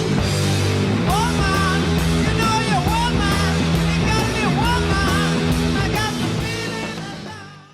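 Loud rock music with electric guitar and drums, a gliding lead line coming in about a second in; the music fades out near the end.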